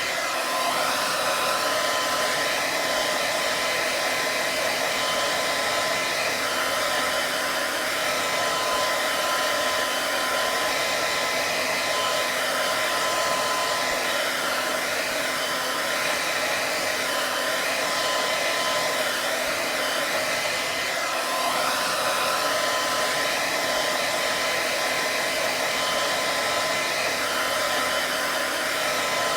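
Hair dryer running steadily: a constant rush of blown air with a faint steady whine from its motor.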